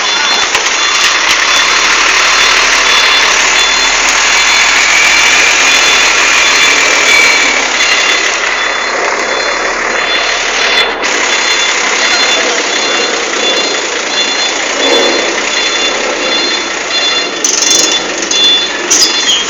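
Truck engine running close by, a loud, steady noisy rush, with a faint high beep repeating throughout.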